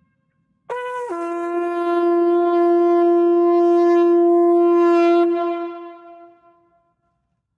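Shofar sounded in one long blast: it opens on a brief higher note, drops after a moment to a lower held tone, and dies away near the end.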